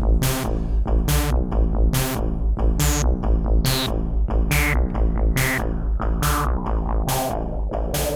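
Electronic loop from a Teenage Engineering OP-Z's sample track: sharp percussive hits at an even pulse over a low bass line. From about two seconds in, a resonant filter sweep glides steadily down in pitch from very high to low.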